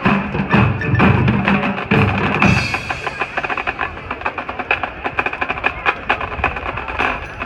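High school marching band playing: low brass chords over drums, then from about two and a half seconds in the percussion section takes over with a run of rapid, sharp drum and wood block strokes.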